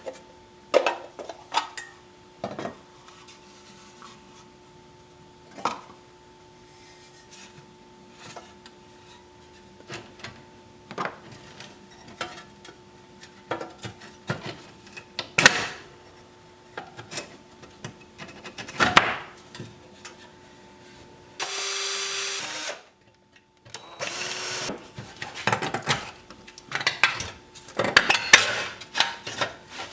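A pressed-steel toy dump truck being taken apart by hand: scattered metallic clinks and knocks of tools and loose steel parts, with a short burst of a power drill about two-thirds of the way through.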